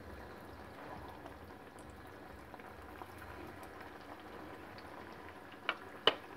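Bread-potato balls deep-frying in hot oil, a steady quiet sizzle and bubble. Two sharp taps near the end.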